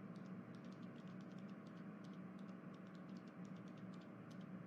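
Faint, irregular light clicking, several clicks a second, over a low steady electrical hum.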